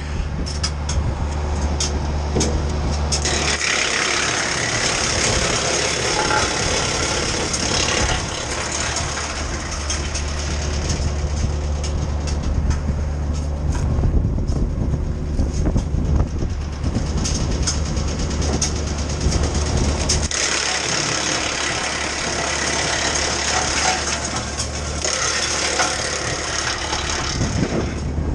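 Titan wood chipper driven by a Kioti subcompact tractor, running with a steady low hum and chipping pine branches. Twice, from about three and a half seconds in and again past twenty seconds, the hum gives way for a few seconds to a loud, rough grinding as branches go through the drum.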